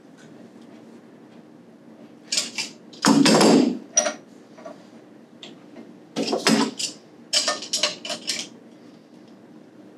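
Metal pipe fittings clinking and clattering as a threaded pipe union on sprinkler valve trim is handled and started by hand. The sound comes in several bursts of clinks, with a longer, loudest clatter about three seconds in.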